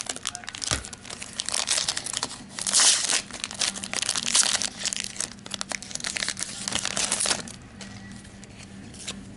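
A trading-card pack's wrapper crinkling and tearing as it is ripped open and handled by hand, with dense crackling that is loudest about three seconds in and dies down after about seven seconds.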